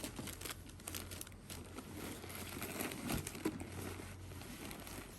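Paper packaging crinkling and rustling as it is handled and unwrapped, in a continuous run of small crackles.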